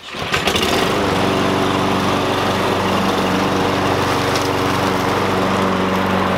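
Four-stroke walk-behind petrol lawn mower running steadily while mowing grass: a loud, even engine hum that starts abruptly.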